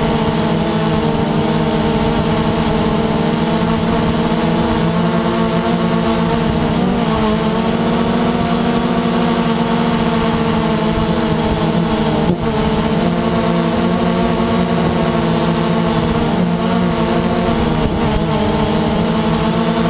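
Multirotor drone's motors and propellers buzzing steadily, heard from the camera on board, with brief dips in pitch a few times.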